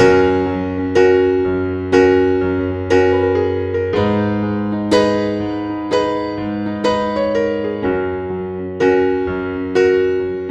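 Background music: gentle piano playing slow notes, about one a second, each struck and left to fade over held bass notes.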